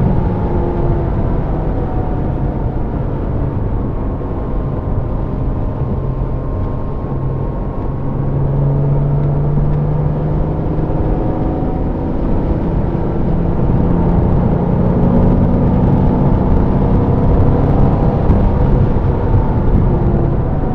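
Porsche engine heard from inside the cabin while lapping a wet track, with steady tyre and road noise underneath. The engine note rises and falls slowly as the car speeds up and slows through the corners.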